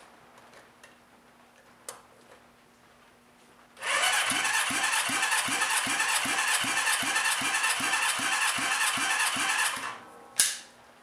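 Honda CB550 inline-four engine cranked over on its electric starter for about six seconds, in even pulses of about three to four a second, during a wet compression test of one cylinder with oil squirted in. A single sharp click follows shortly after the cranking stops.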